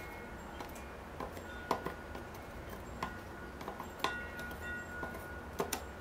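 Metal tweezers ticking and clicking lightly against a miniature model house and brick pathway as moss is picked out, with about eight irregular, scattered clicks.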